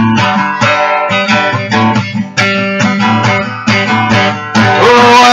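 Acoustic guitar strummed in a steady rhythm, about three strokes a second. It grows louder and fuller near the end.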